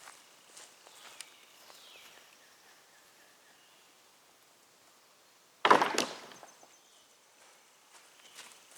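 A loud, sudden wooden crash a little over halfway through, two quick hits close together, as a piece of rotted decking wood comes down. Otherwise only faint outdoor ticks and rustles.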